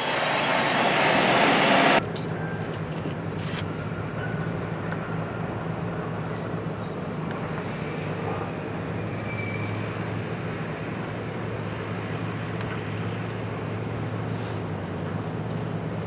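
A loud rush of noise rising for about two seconds and cutting off suddenly, then a steady low engine hum, with faint short high tones over it now and then.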